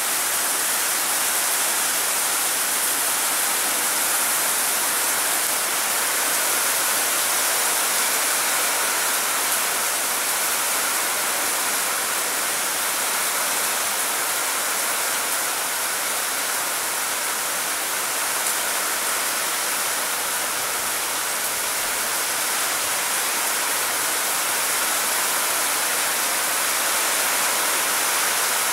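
Rain falling steadily: an even, unbroken hiss of drops.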